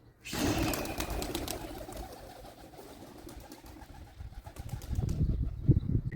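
Pigeon wings flapping in a sudden flurry about half a second in, fading over the next second or two, followed by quieter low pigeon sounds near the end.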